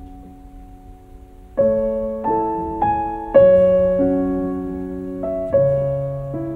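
Slow, gentle piano music: after a fading chord, a melody of single notes and chords starts about a second and a half in, each note struck sharply and then dying away.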